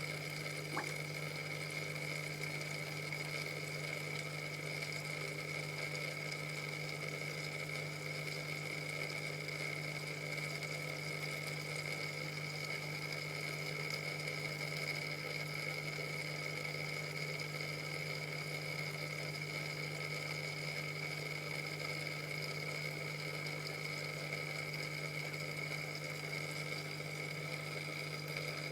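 Steady machine hum with a constant high whine over a faint hiss, unchanging throughout, with a couple of small clicks right at the start.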